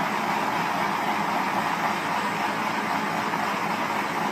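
Electric heat gun blowing steadily as it shrinks adhesive-lined heat-shrink tubing over an RJ45 connector.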